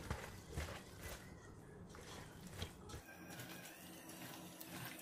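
Bare hands squeezing and tossing cabbage coated in chili paste in a pot, making faint, irregular wet squishes.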